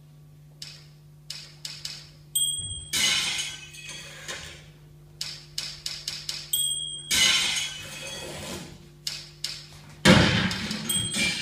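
A string of sudden crashes and clinks that starts about half a second in and is loudest near the end, over a steady low hum.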